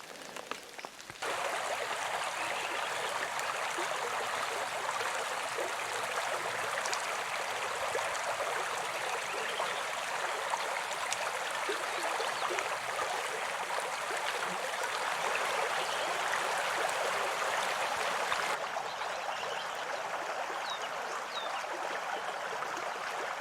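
Steady hiss of falling rain, starting suddenly about a second in and turning a little duller near the end.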